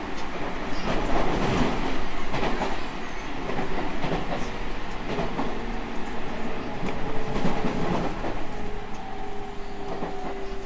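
Running noise of a JR Central 313 series 5000 subseries electric train under way: steady rolling noise with irregular clacks of the wheels over the rails. A steady tone comes in near the end.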